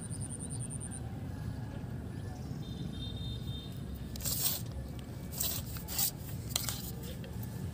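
Low steady rumble with four brief scraping noises about halfway through and later on.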